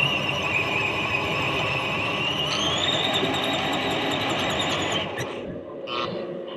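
Electric motor and gearbox of a radio-controlled scale Mercedes model whining as it drives, heard from a camera inside its cab. The high whine dips in pitch, rises again about three seconds in, and cuts off about five seconds in as the model comes to a stop.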